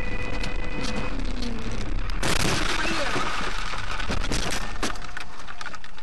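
Car crash heard from inside the car: about two seconds in, a loud hit and scrape lasting about a second as the car runs up onto the roadside curb, then a run of sharp clicks and rattles, over steady road and cabin noise.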